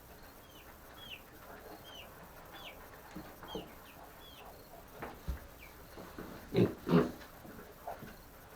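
Baby chicks peeping: short, high, falling peeps, several a second in loose succession. Near the end come two louder, rougher short sounds, close together.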